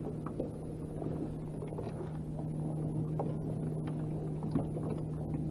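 Steady low hum of an electric trolling motor holding a small fishing boat in place, with a few faint clicks as a crappie jig is handled and re-baited.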